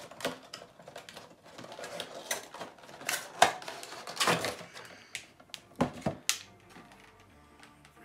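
Cardboard Funko Pop window box being opened and its clear plastic tray and bag pulled out: an irregular run of crinkles, scrapes and sharp clicks, loudest about three and four seconds in, with a few sharp snaps around six seconds, then dying down.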